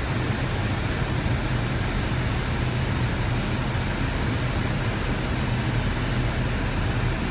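Steady cockpit noise of an Airbus A319 on approach with full flaps: a constant rush of airflow with a low, steady hum underneath.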